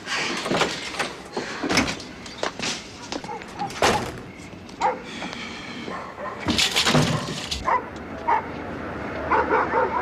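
A dog barking several times.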